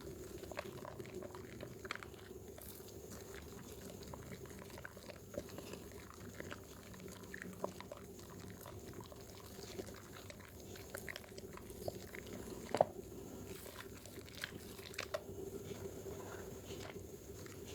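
Dermythol bar soap being lathered wet: a run of soft, irregular squishy crackles and clicks from the foam, over a steady low hum.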